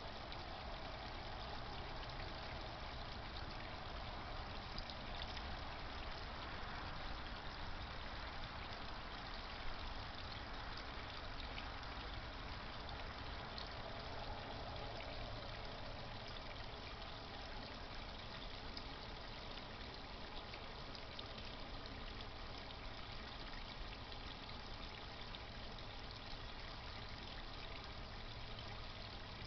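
Garden pond water trickling and splashing steadily, kept running by a pond pump, with a steady low rumble underneath.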